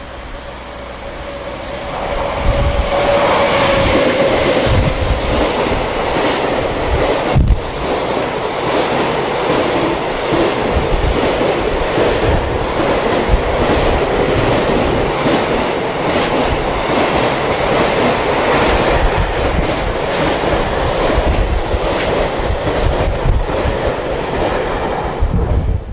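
Long freight train hauled by a JR Freight EF200 electric locomotive passing close by. It arrives about two seconds in, then the wagons run past with a steady rumble and a rhythmic clickety-clack of wheels over rail joints, which cuts off suddenly at the end.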